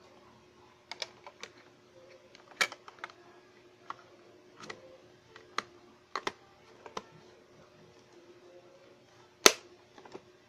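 Plastic clicks and knocks from hands handling a portable radio and pressing on its battery compartment cover. The clicks come irregularly, with one loud, sharp snap near the end.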